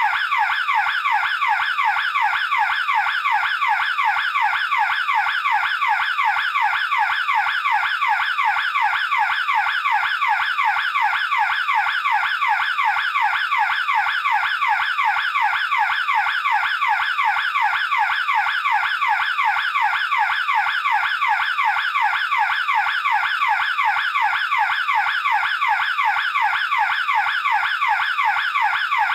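Burglar alarm bell-box siren sounding without a break: a high tone sweeping up and down several times a second in an even, unchanging rhythm at steady loudness.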